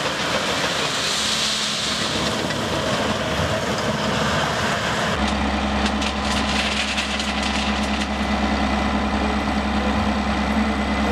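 Heavy diesel machinery on railway ballast: a Caterpillar crawler dozer working a heap of ballast stone with its blade, with a steady noisy rush. About five seconds in, this gives way to a dump truck's diesel engine running at a steady idle while its raised bed tips out ballast, with scattered stone clicks.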